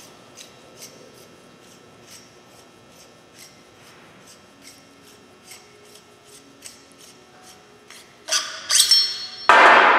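Faint regular clicking, about two a second, as the steel packing mandrel of a slickline X-lock is unthreaded by hand. Near the end come two loud, ringing metal clanks as steel tool parts are set down on the metal workbench.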